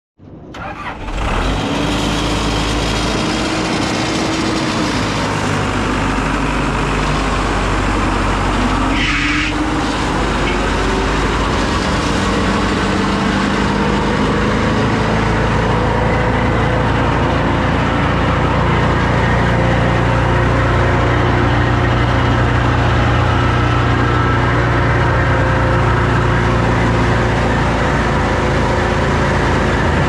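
Morbark wood chipper's engine starting, catching within the first second or two, then running steadily; its low hum grows fuller from about halfway through.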